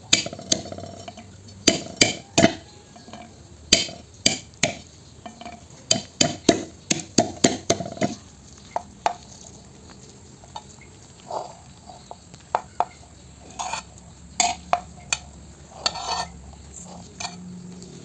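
Small bitter eggplants being crushed in a dish: sharp, irregular knocks and clinks of a kitchen utensil against the dish. The knocks come thick and fast for the first eight seconds or so, then more sparsely.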